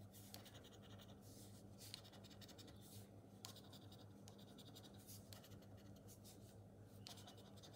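Faint, irregular scratching strokes as the latex coating is rubbed off a paper scratch card, over a steady low hum.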